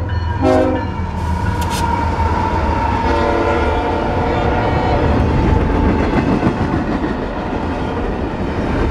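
CSX intermodal train passing at speed, its locomotives and container cars making a steady rumble and clatter. The lead locomotive's horn sounds briefly about half a second in, then again for about two seconds from about three seconds in.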